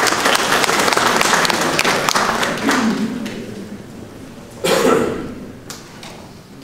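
A small audience applauding with light hand-claps in a hall, fading away after about three seconds. About five seconds in there is one short, loud sound.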